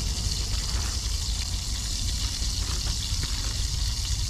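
Steady hiss with a low rumble from a lit camp stove burner heating margarine in a cast iron skillet, with a few faint plastic-bag crinkles.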